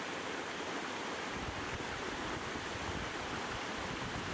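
Steady rushing of a small mountain stream splashing over rocks in little cascades.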